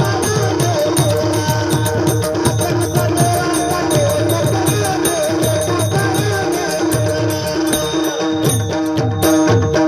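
Marathi bhajan accompaniment: tabla playing a fast, steady rhythm, the bass drum's strokes sliding down in pitch, with small hand cymbals keeping time and held notes sounding underneath.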